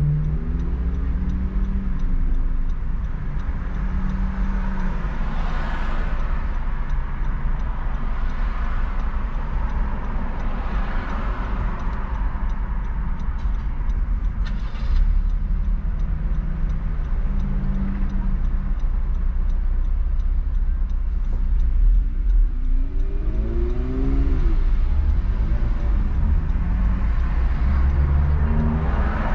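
Car driving on city streets: steady low engine and road rumble, with the engine note rising as it accelerates about a second in and again in a few steps around two-thirds of the way through. Swells of passing traffic come and go.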